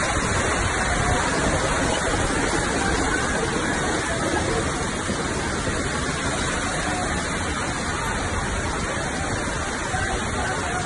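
Fast-flowing floodwater rushing past in a steady, unbroken noise.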